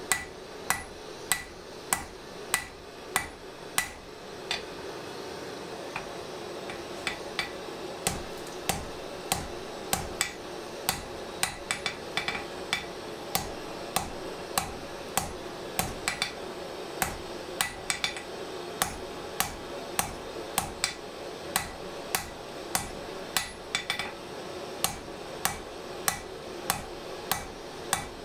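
Hand hammer striking red-hot steel on a farrier's anvil, about two blows a second, each with a short metallic ring, as the drawknife blank is drawn out. A steady low rush runs under the blows.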